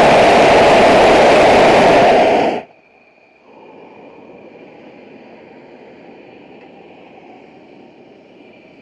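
Hot air balloon's propane burner firing a long blast, loud and even, that cuts off suddenly about two and a half seconds in. A faint steady hiss with a thin high tone follows.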